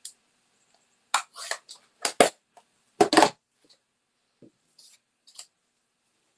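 Hard plastic clacks and knocks of stamping supplies, an ink pad and a clear acrylic stamp block, being handled and set down on a desk. A quick cluster of sharp knocks comes about one to three and a half seconds in, the loudest near three seconds, followed by a few fainter taps.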